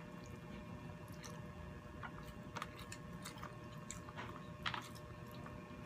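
People chewing food: wet mouth smacks and clicks at irregular intervals, heard up close.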